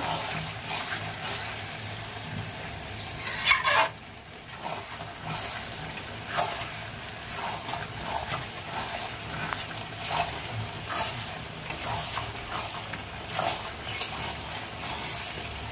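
Mutton and potato chunks being stir-fried with ground spice masala in a large metal kadai: a steady sizzle under the irregular scrape and clatter of a spatula working through the pan, the loudest scrape about three and a half seconds in.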